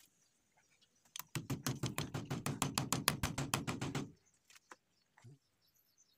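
Hammer tapping a nail, a quick even run of about eight light strikes a second for about three seconds, fixing an insect screen to a window frame. A few faint knocks follow.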